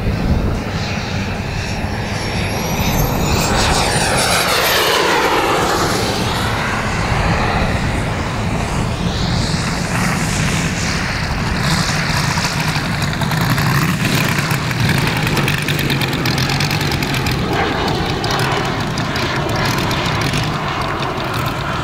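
Propeller engine of a large radio-controlled Focke-Wulf Fw 190 scale model running. About three to six seconds in, its pitch falls as it passes by, and after that it runs steadily.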